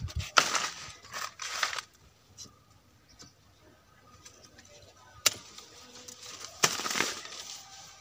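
Hand pruning cutter cutting branches of a young jamun tree: a few short, sharp cutting sounds, two near the start and two more about five to seven seconds in, the sharpest a click just past five seconds.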